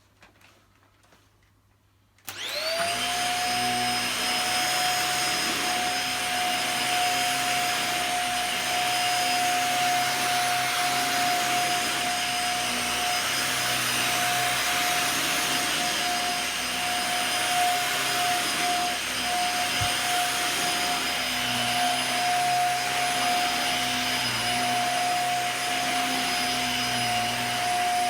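Dyson DC50 upright vacuum cleaner switched on about two seconds in, its motor spinning up to a steady whine and running on maximum suction over carpet.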